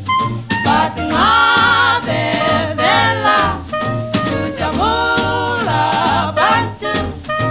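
Background music: a song with singing, long held notes that waver in pitch, over a band with drums.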